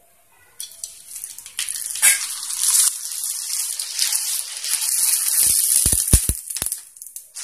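Dried sago vadam frying in hot oil in a wok: a loud sizzle starts about half a second in as the piece goes into the oil and puffs up. A few brief low knocks come near the end.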